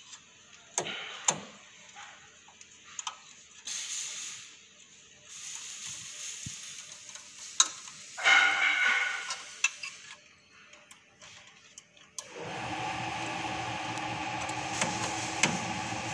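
Insulated wire leads with metal ring terminals being handled and a screwdriver worked at a terminal block: scattered small clicks and rustles, with a louder rustle about eight seconds in. About twelve seconds in, a steady hum with several held tones starts and keeps going.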